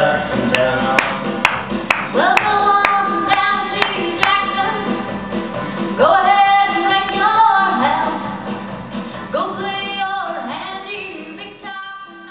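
A woman singing a slow song into a microphone over backing music, holding long, gliding notes. Light taps keep a beat about twice a second for the first few seconds, and the music fades out near the end.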